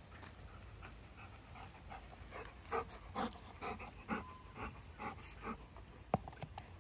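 Golden retriever puppy panting softly, about two breaths a second, with one sharp click near the end.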